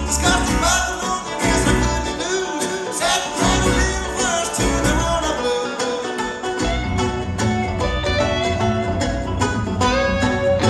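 Live bluegrass band playing: acoustic guitar, plucked upright bass and mandolin. The bass drops out briefly just past the middle.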